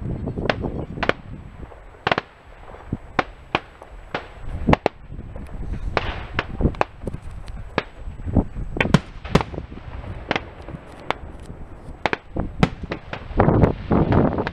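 Aerial fireworks shells bursting in an irregular series of sharp bangs over a low rumble, with a dense run of rapid cracks near the end.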